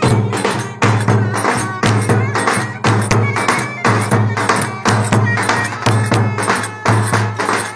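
Live Turkish wedding dance music led by clarinets, over a steady, evenly repeating percussion beat.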